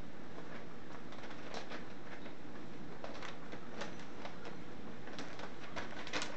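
Newsprint ad sheets rustling and crackling in scattered, irregular bursts as a cat rolls and shifts on them, busier in the second half, over a steady hiss.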